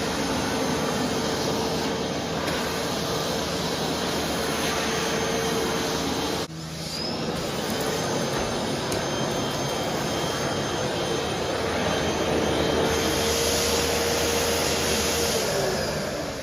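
Vacuum cleaner running with an even rush of air and a steady motor whine, with a sudden brief dip about six seconds in. Near the end the whine falls in pitch as the motor begins to wind down.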